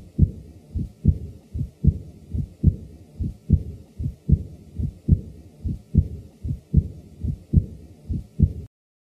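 Heart sounds heard through a stethoscope: paired lub-dub beats about 70 times a minute, with an early diastolic murmur that begins at the second heart sound, typical of aortic regurgitation. The beating stops shortly before the end.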